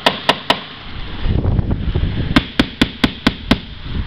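Small hammer tapping on a boat's transom, a sound test for soft, rotten wood inside: three quick sharp taps, about a second of low rumbling noise, then a run of about six taps at roughly four a second.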